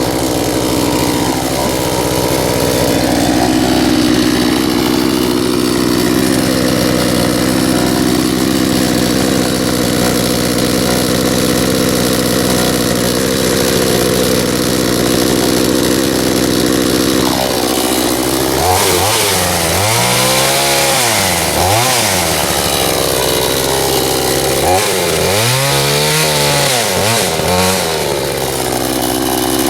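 Two-stroke gas chainsaw running steadily while cutting into a stump. Over the second half its engine speed twice rises and falls as the saw is revved and bogs in the cut.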